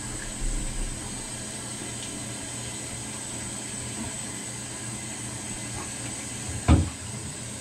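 Steady hiss of water running from the bathtub tap, with one dull thump near the end.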